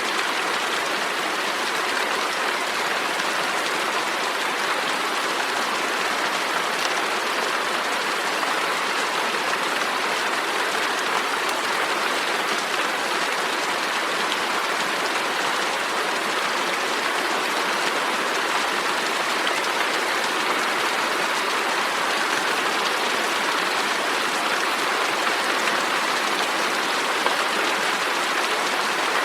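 Steady rain falling: an even, unbroken hiss that neither builds nor eases.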